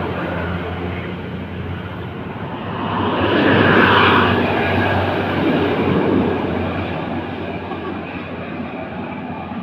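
Tour bus engine running with a steady low hum, swelling louder for a couple of seconds about three seconds in as a large vehicle passes, then easing off.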